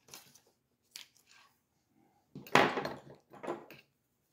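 Small clicks and taps of tools and steel parts being handled on a wooden desk while a detent is fitted into an AR-10 adjustable gas block, with a louder scraping bump about two and a half seconds in and a smaller one a second later.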